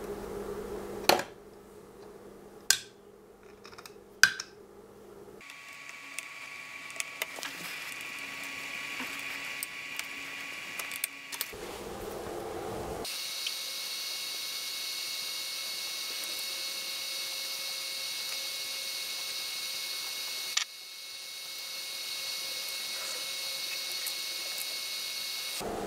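Three sharp clicks in the first few seconds, then a steady high-pitched electrical whine with faint hum. The whine changes abruptly several times along the way.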